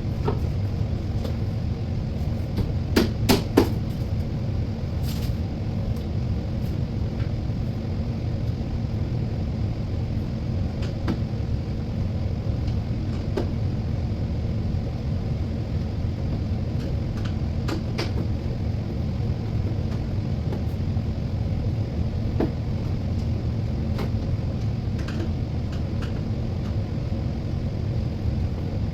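Steady low rumble, with a few scattered knocks and clicks of cabinet panels and parts being handled during assembly; the loudest is a quick cluster about three seconds in.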